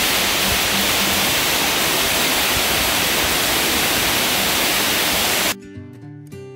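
Waterfall crashing onto rock: a loud, steady rush of falling water. About five and a half seconds in it cuts off abruptly and strummed acoustic guitar music takes over.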